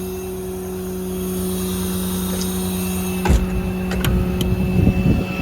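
Ram 5500's 6.7 Cummins diesel engine idling with a steady hum. About three seconds in come a couple of sharp knocks, then some irregular low thumps.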